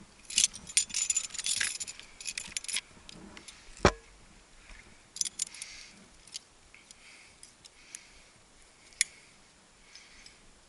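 Metal climbing gear (carabiners and removed protection) jangling and clinking as the climber moves, densest in the first three seconds, with one sharp knock about four seconds in and scattered clinks after.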